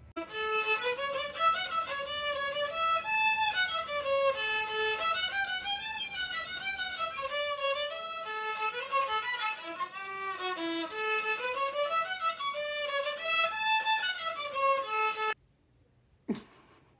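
A violin playing a melody of quick notes that rise and fall in phrases, cutting off abruptly about fifteen seconds in.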